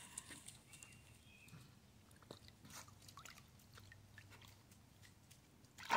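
Very faint, scattered small clicks and splashes of a dog working at the water in a small pool, trying to get a bone out.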